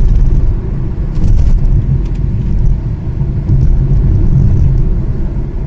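Steady low rumble of a car driving along a road, heard from inside the moving car.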